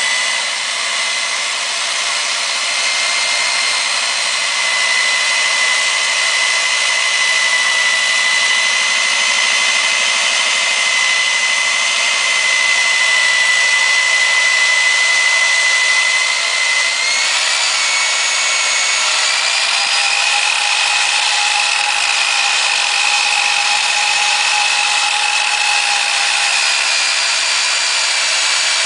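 Kor-It K804 hand-held core drill's 1500-watt electric motor running steadily with a high whine. About two-thirds of the way through, the whine shifts slightly higher in pitch and a lower hum joins it.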